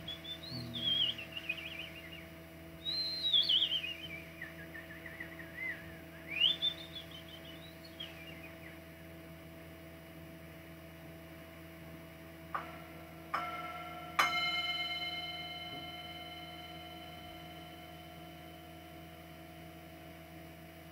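Wordless whistling in long rising and falling phrases with warbling trills. Then a small bell is struck three times in quick succession, and the last strike rings out and fades slowly over several seconds.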